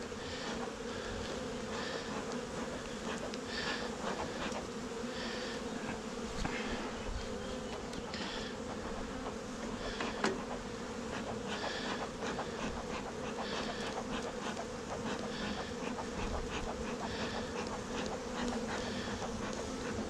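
Honeybee colony humming steadily at an open hive. Short hissing puffs come now and then from the beekeeper's smoker bellows, used to drive the bees down into the frames, and there is a single light knock about ten seconds in.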